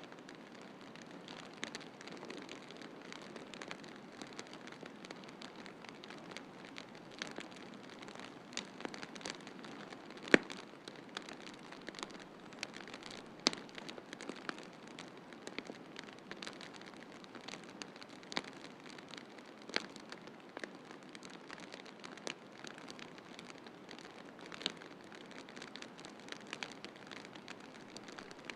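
Wood fire crackling in a fireplace: irregular sharp pops and snaps over a steady soft hiss, with a loud pop about ten seconds in and several smaller ones later.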